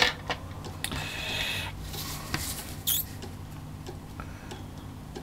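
Clear plastic ruler being positioned on drawing paper: a sharp tap at the start, a short scraping shuffle about a second in, then a few small clicks and taps as it is settled, over a faint low hum.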